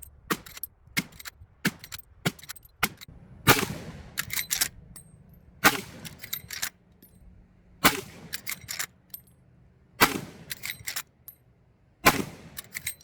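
Marlin 1895 SBL lever-action rifle in .45-70 fired five times, about two seconds apart, each heavy shot ringing out briefly and followed by a quick run of clicks as the lever is worked. Lighter clicks and pops come before the first shot.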